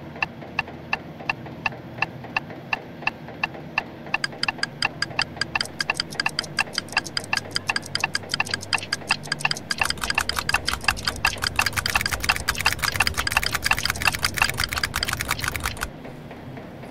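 Clock ticking, at first about twice a second, then speeding up into a dense, louder run of ticks with a low rumble underneath, and cutting off suddenly near the end.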